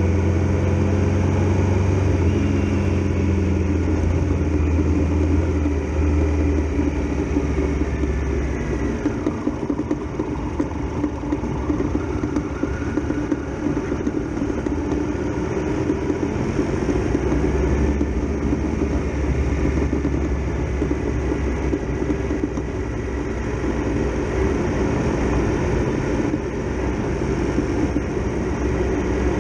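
Triumph Tiger Explorer XRx motorcycle's three-cylinder engine running under way, heard from the bike with a steady rush of noise. The engine note eases off about nine seconds in, then picks up again later as the bike pulls away.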